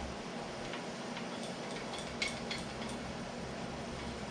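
Scattered light clicks and taps, with one sharper click a little past two seconds in, over a steady low hum.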